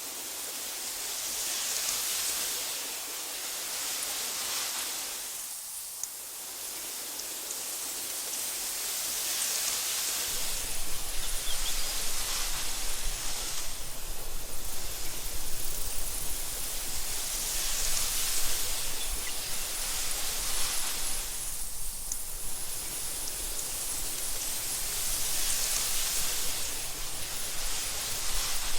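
Wind blowing through tall meadow grass: a steady rushing hiss that swells and fades in gusts every few seconds. About a third of the way in, a low rumble joins it.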